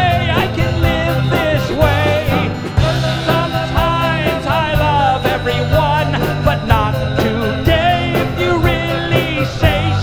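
Live band music: a drum kit keeps a steady beat under keyboards and guitars, with a lead line that bends and wavers in pitch over them.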